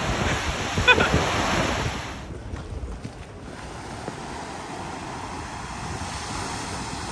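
Ocean surf breaking and washing against rocky sea cliffs, with wind buffeting the microphone. A short pitched cry sounds about a second in. About two seconds in the noise drops suddenly, then the surf runs on steadier and quieter.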